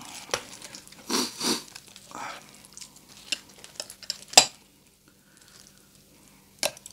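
Crispy fried pork, chicharon bulaklak and lechon kawali, crackling as it is broken and pressed by hand onto rice, with two crunchy bursts about a second in. Sharp metal clinks follow, the loudest about four seconds in, as a spoon is handled.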